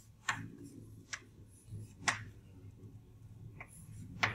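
Chalk striking and scratching on a blackboard while writing: about five short sharp taps at irregular intervals.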